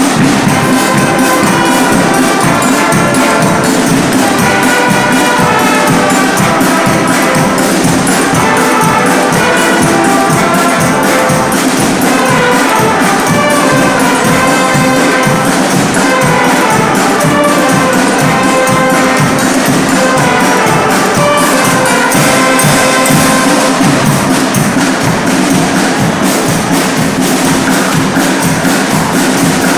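Loud music with brass and percussion over a steady beat.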